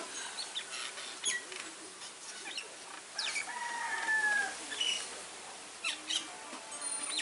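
Birds calling: one drawn-out call with a slightly falling pitch about three seconds in, among scattered short chirps.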